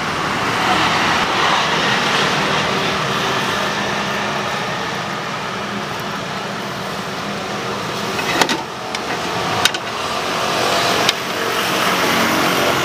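Steady road traffic noise of passing cars, with three sharp clicks in the last third.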